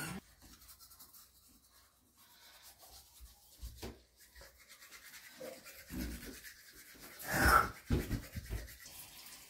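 Toothbrushes scrubbing teeth: faint, irregular rubbing of bristles, with a few soft knocks and one short hiss about seven and a half seconds in.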